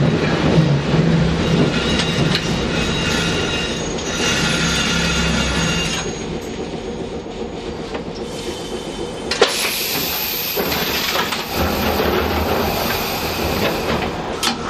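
Fukui Railway 200 series articulated tram heard from inside the car, running on street track and slowing to a stop, with a high squeal over the running hum for a few seconds. Once it is standing, a sharp click about nine seconds in, then a steady mechanical hum from the stationary car.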